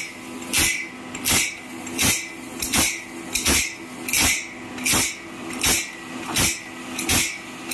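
Automatic bandsaw blade sharpener running: its electric motor hums steadily while the grinding wheel dips onto the blade, giving a sharp grinding rasp about every 0.7 s as the blade is sharpened tooth by tooth.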